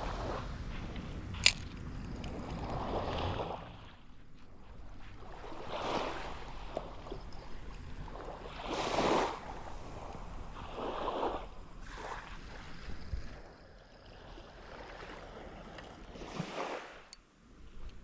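Seawater washing in and out in swells every few seconds, with wind on the microphone. A single sharp click about a second and a half in.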